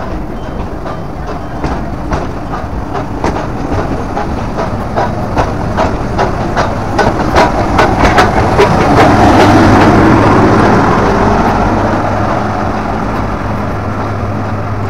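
Nilgiri Mountain Railway toy train pulling out past the platform: wheels clicking over the rail joints, the clicks coming faster as it gathers speed. The steam locomotive pushing at the rear passes about nine to eleven seconds in, the loudest stretch, with a rushing sound and a steady low hum that fade as it moves away.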